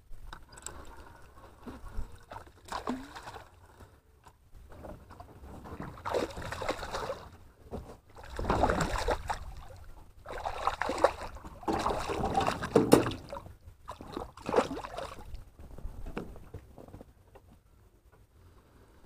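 Water splashing and sloshing in irregular bursts as a hooked golden dorado thrashes at the surface beside a boat and is pulled in by hand; the loudest splashes come about halfway through.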